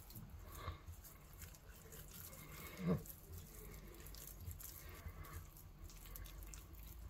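Hands smearing soft lard and chopped rosemary over raw rabbit meat: faint, soft squishing and patting, with one louder short sound about three seconds in.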